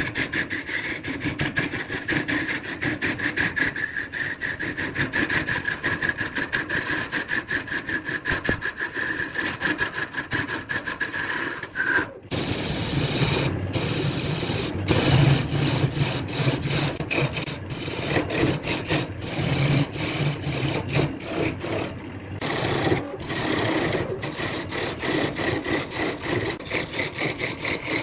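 Wood lathe running while a turning tool cuts into the spinning wood, a scraping sound with a rapid, even ticking through it. A steady whine sits under it for the first half, and the sound breaks off sharply for an instant several times.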